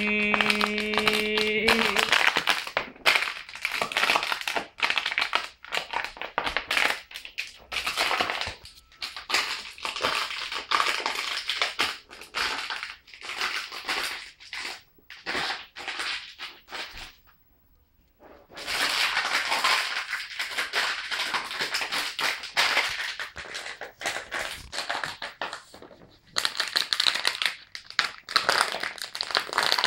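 Plastic water bottle toy being crunched and crinkled by a dog chewing and pawing at it: rapid, irregular crackling crunches, with a pause of about a second and a half just past the middle.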